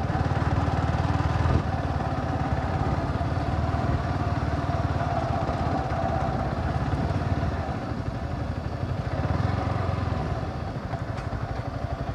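Yamaha R15's single-cylinder engine running at low revs as the motorcycle is ridden slowly, with a fast, even firing pulse; it eases off and gets a little quieter near the end as the bike slows.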